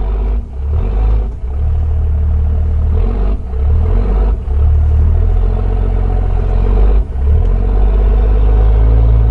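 Diesel pickup truck engine running at low speed while maneuvering: a loud, low rumble that dips briefly several times.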